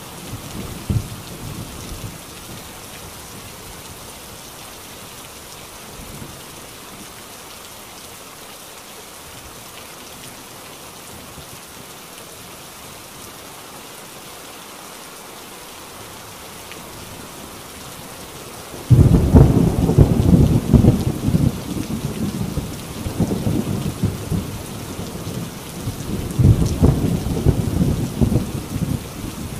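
Heavy rain pouring steadily on a corrugated tin roof. About two-thirds of the way in, thunder breaks suddenly and loudly, then rumbles on, with a second loud swell near the end.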